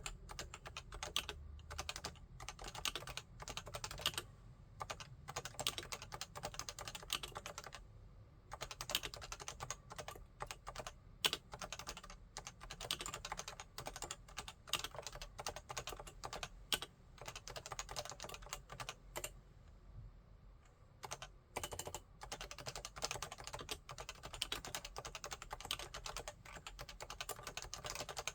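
Typing on a Realforce 87U 10th tenkeyless keyboard with 55 g Topre capacitive switches: a steady stream of rapid keystrokes, with short pauses about eight and twenty seconds in.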